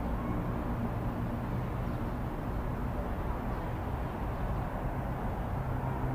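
Street ambience: a steady low rumble of road traffic, with faint engine hums in it and no single event standing out.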